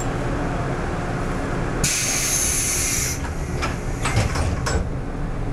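Stationary 113-series electric train: a steady low hum in the car, then a loud burst of compressed-air hiss lasting just over a second, followed by several quick knocks, as the train's pneumatic equipment works at the platform.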